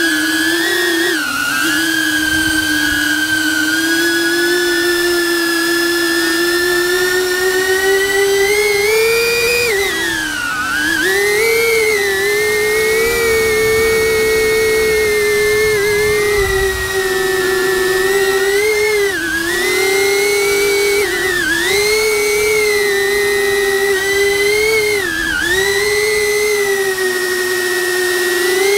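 DJI Avata FPV drone's motors and propellers whining at close range, heard from a camera mounted on its back. The pitch holds steady, climbs to a peak about nine seconds in, then dips and recovers several times as the throttle changes.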